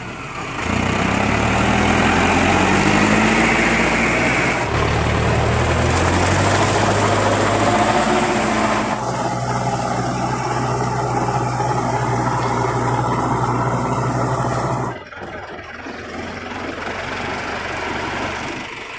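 Mahindra Arjun Novo 605 DI tractor's four-cylinder diesel engine running steadily under load, pulling a rotavator through wet mud. The engine note changes abruptly a few times and drops in level about three-quarters of the way through.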